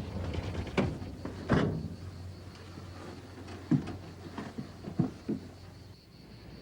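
About six sharp knocks and thumps, unevenly spaced, over a low steady hum that fades out near the end.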